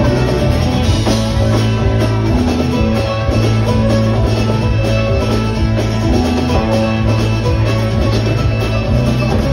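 Live country-rock band playing an instrumental break: fiddle over electric guitars and a drum kit, with a moving low bass line.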